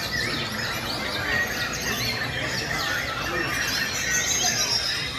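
Many caged white-rumped shamas singing at once: a dense, unbroken chorus of overlapping whistles and shrill squealing phrases, typical of a songbird contest round.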